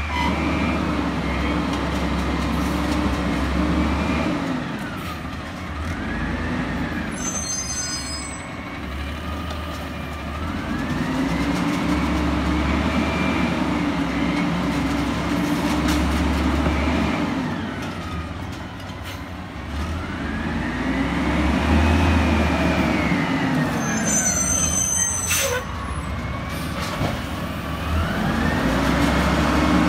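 Peterbilt 320 garbage truck's diesel engine revving up and falling back again and again, each rise and fall lasting a few seconds, as it drives the hydraulics of the Amrep automated side-loader arm. A short air hiss comes twice, the second one followed by a sharp knock.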